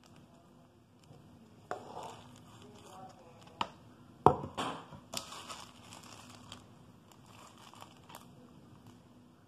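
A plastic bag crinkling and rustling, with several sharp knocks of small items being handled and set down on a hard countertop. The loudest knock comes a little over four seconds in.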